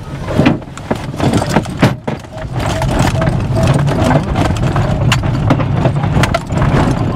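Glider rolling over a bumpy grass airfield at the start of an aerotow takeoff: repeated knocks and rattles from the airframe and main wheel, with a low rumble that builds from about two and a half seconds in and holds as the glider picks up speed.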